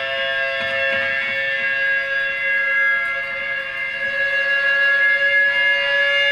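Electric guitar laid flat, its strings sustained with an EBow: a steady chord of held, droning notes with no decay, swelling slightly louder over the seconds.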